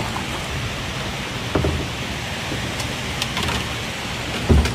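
A hooked channel catfish thrashing at the surface beside a kayak: low splashing thumps about a second and a half in and again, loudest, near the end, over a steady rush of water.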